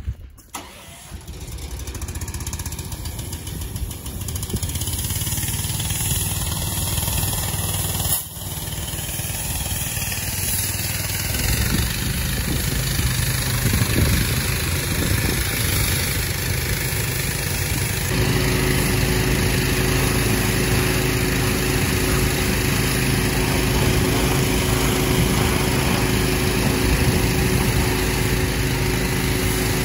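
Small gas engine of a pressure washer starting and running steadily. About eighteen seconds in, the sound changes and a steady hum joins it.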